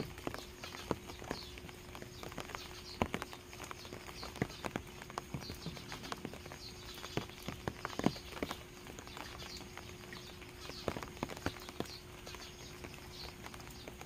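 Rain dripping from the eaves of a thatched roof, single drops landing at irregular intervals, some much louder than others. A bird chirps faintly from the trees behind.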